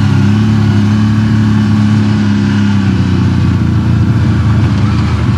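CFMOTO CForce ATV engine running steadily as the quad rides along at a low, even speed. Its pitch rises a little over the first couple of seconds, then settles.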